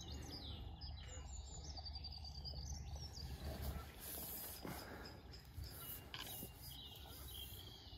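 Faint birdsong: short chirping calls repeated throughout, over a low, steady rumble.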